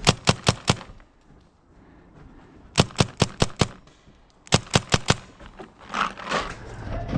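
Paintball marker firing three quick bursts of about five shots each, the bursts roughly two seconds apart.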